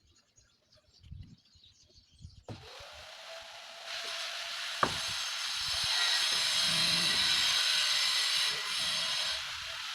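A steady hiss begins abruptly about two and a half seconds in, with a single sharp click about halfway through.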